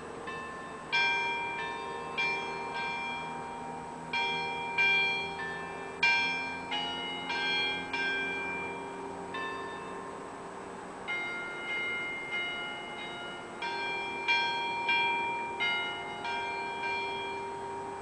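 Church bells ringing: several bells of different pitch struck one after another, about two strokes a second, each stroke ringing on and fading under the next, with a short lull about ten seconds in.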